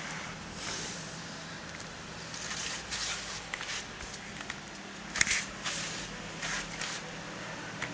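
Several short bursts of rustling and brushing as a cat's fur rubs against the camera right at the microphone, over a faint low steady hum.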